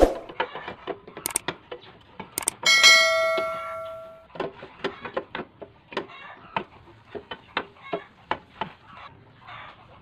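A hard plastic scooter side cover being handled and pushed into place: a run of clicks and knocks. About three seconds in, a piece of metal is struck and rings out clearly for over a second before dying away.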